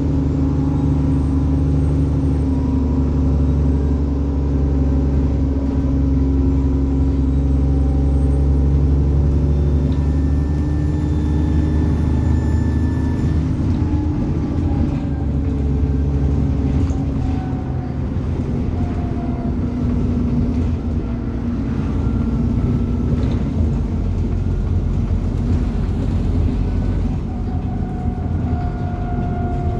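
ADL Enviro 400 double-decker bus's diesel engine running steadily under way, a low drone with a high turbo whine that slowly rises and falls in pitch.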